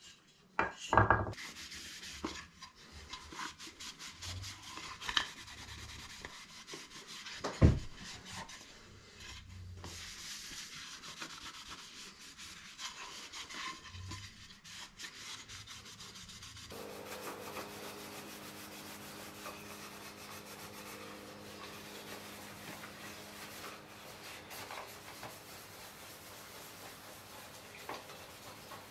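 Hand rubbing on wood, with a few sharp knocks of the wooden box being handled early on. A low steady hum joins about two thirds of the way through.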